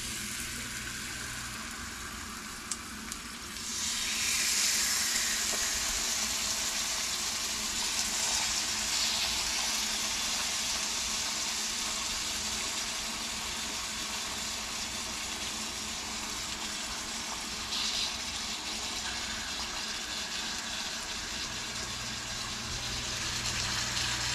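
Bluefish fillets sizzling in hot oil in a cast iron skillet as they are laid in to sear. The frying hiss grows much louder about four seconds in, then eases slowly to a steady sizzle.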